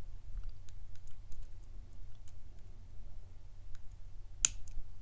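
Lock pick working the pin tumblers of a Centurion round-bodied padlock: scattered faint ticks and clicks, with one sharper click near the end as the rear pin sets.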